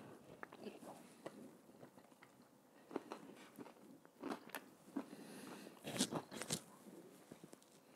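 Close-miked biting and chewing of an Italian meat-and-cheese sub on a bread roll, with small crunching clicks and mouth smacks. A louder run of crackly snaps comes about six seconds in.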